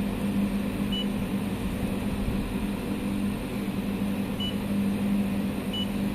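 A 200 kW three-phase inverter running with a steady low hum over a rushing noise, while its touch-screen control panel gives a short high beep at each button press, three times: about a second in, at four and a half seconds and near the end.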